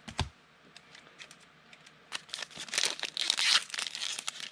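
A short thump about a quarter second in, then from about two seconds in a foil trading-card pack wrapper being torn open and crinkled by hand.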